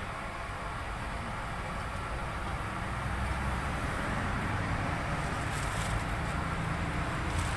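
Steady rumble of passing road traffic, a little louder from about three seconds in, with a couple of faint clicks in the second half.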